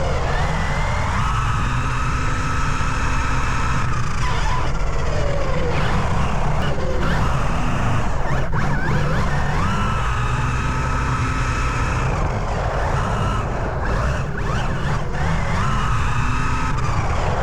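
Electric RC car brushless motor whine, rising in pitch on the throttle, holding, then falling, three times, over a steady low noise.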